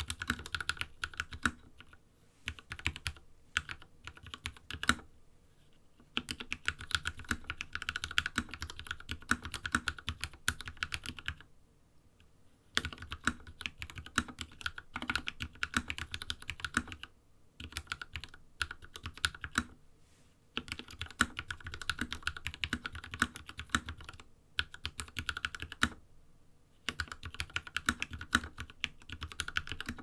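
Typing on a KEMOVE 61 SnowFox 60% mechanical keyboard fitted with hand-lubed (Krytox mix) Gateron Red linear switches and modded stabilizers: fast runs of keystrokes broken by short pauses several times.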